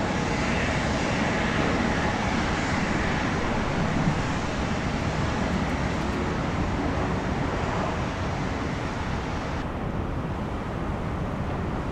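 Airbus A220-300 jet engines running at taxi power: a steady rumble and hiss with a faint whine early on. About ten seconds in, the sound cuts abruptly to a duller, quieter hiss.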